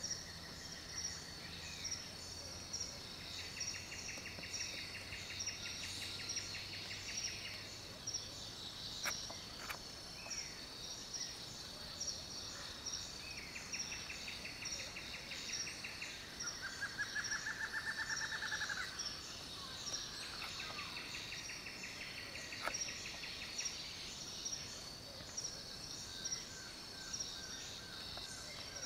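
Birds calling in dry scrub: a buzzy, rapidly pulsed trill repeated three times in bouts of a few seconds, and a different, lower trill near the middle, over a steady high-pitched chirring.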